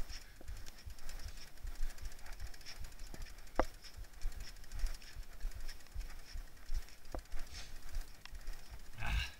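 Mountain bike clattering down a rough, wet trail: irregular knocks and rattles from the bike over bumps, with a few sharp clicks spread through.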